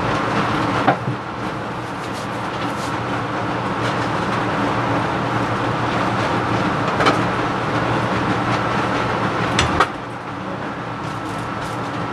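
Laminar flow hood blower running steadily with a low hum and rush of air. Three sharp metal clicks come from the pressure cooker's lid as it is unlatched and lifted off: one about a second in, one about seven seconds in, and the loudest just before ten seconds.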